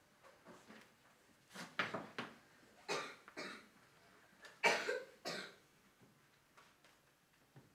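A woman coughing in three rough, hoarse bouts, about two, three and five seconds in, the last the loudest.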